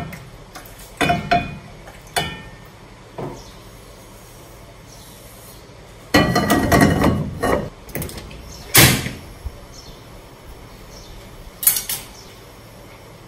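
Metal cookware clanking and knocking: a non-stick wok and a stainless steel pot being handled after the oil is poured off, and the wok set back on the gas stove's pan support. There are a few separate knocks in the first few seconds, a longer clattering scrape about six seconds in, and two more single clanks near the end.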